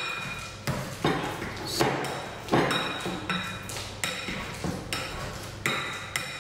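Potato masher mashing ripe bananas in a glass mixing bowl: the masher knocks against the bowl about once a second, each knock leaving a short glassy ring.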